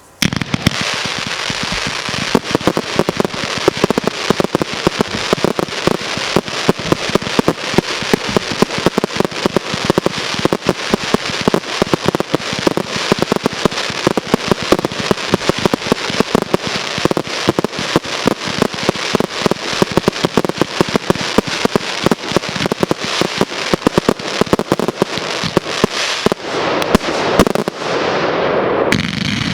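Fireworks display firing: a dense, unbroken barrage of rapid pops and bangs that starts abruptly.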